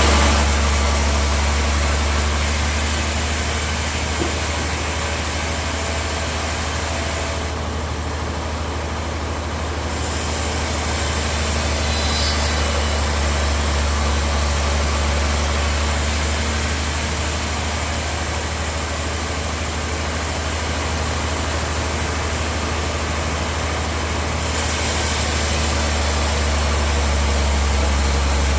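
Sawmill bandsaw machinery running steadily: a strong low hum under a constant hiss, whose upper part thins out for a couple of seconds about a quarter of the way in.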